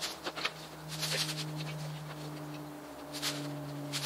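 Mini-split outdoor unit being lifted and set down onto a metal wall bracket: a few short scuffs and rustles of handling. A steady low hum runs underneath.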